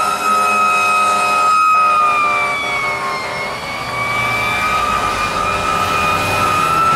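Fire engine's Federal Q2B mechanical siren held at a steady high wail, sagging in pitch about two seconds in and winding back up. In the first half a lower, chord-like horn blares under it in blasts.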